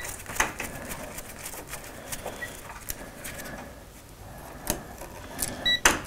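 Scattered clicks and light rattles of a wall switch and its stiff wires being handled with gloved hands, with a sharper click near the end.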